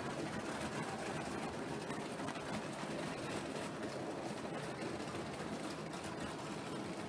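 7mm-scale (O gauge) model freight train, hauled by a model 8F locomotive, running along the track: a steady rumble of wheels and small motor, with faint clicking.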